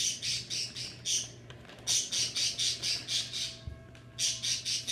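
Plastic bag of frozen strawberries crinkling as it is pulled open and handled, in three runs of quick rustling bursts, several a second.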